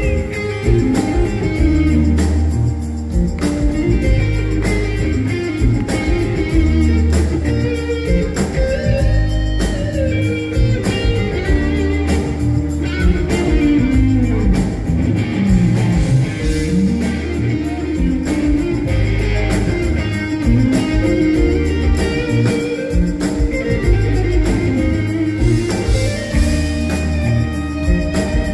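Live rock band playing an instrumental passage through the PA: electric guitar lead over bass and drums, with no singing.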